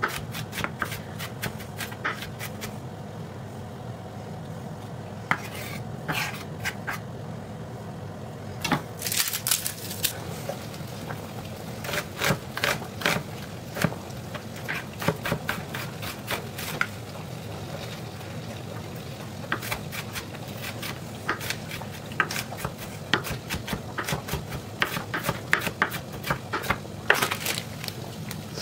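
Chef's knife chopping onion on a wooden cutting board: sharp knocks of the blade on the wood in irregular runs with short pauses, over a steady low hum.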